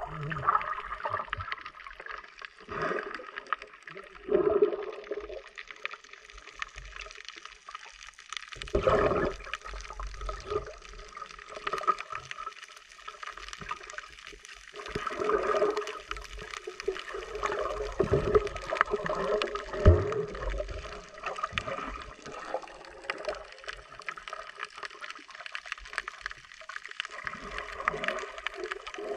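Water gurgling and sloshing in irregular surges, muffled.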